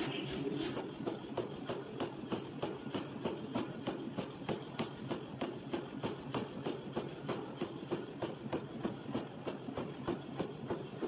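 Wire brush scrubbing scale off a glowing hot forged steel ring, in quick, even strokes about three a second.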